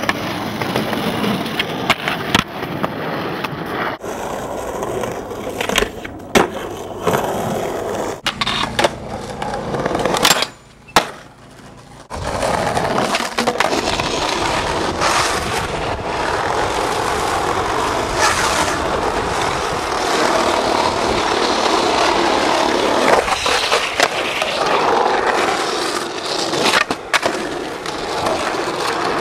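Skateboard wheels rolling over pavement, a steady rolling noise broken by sharp clacks and scrapes from tricks and landings, with a board sliding along a concrete ledge at the start. A short quieter break comes about ten seconds in.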